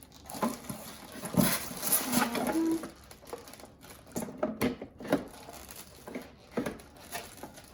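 Monitor parts and packaging being handled: irregular knocks, clicks and rustling as pieces of the stand are taken out and set down.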